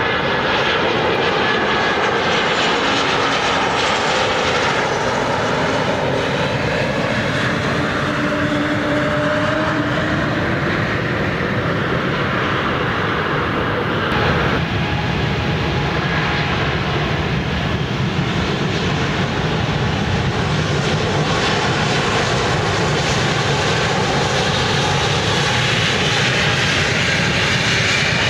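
Turbofan engines of Embraer regional jets running loud and steady at close range, a whine over a deep rumble: first a jet landing, then, after a sudden change about halfway through, another jet on the runway.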